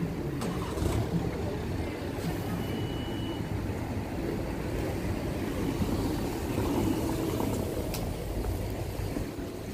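Town-centre street ambience: a steady low rumble with a few faint clicks.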